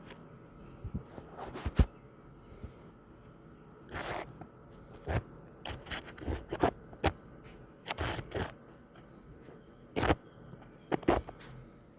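Irregular scuffing, scraping and knocking noises, some of them sharp, during rough play with a puppy.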